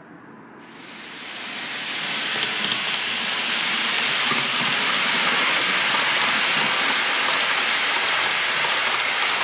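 OO gauge model High Speed Train running past on the layout's track, a steady rushing rumble of wheels and motor. It builds up over the first couple of seconds as the train approaches, then holds steady.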